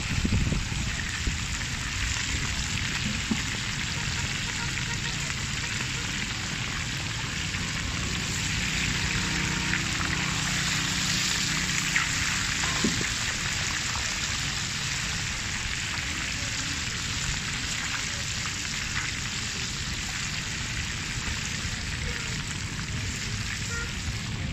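Fish pieces deep-frying in hot oil in a round-bottomed metal pan: a steady sizzle with no pause. About halfway through, a metal spatula clicks a couple of times against the pan as the fish is turned.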